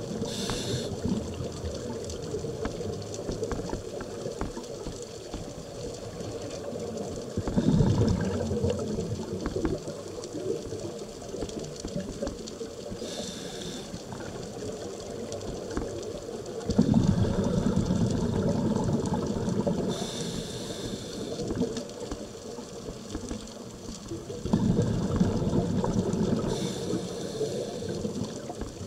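Scuba breathing underwater: short hisses of the regulator on each inhale and longer, louder stretches of exhaled bubbles, a breath every six or seven seconds over a steady underwater hiss.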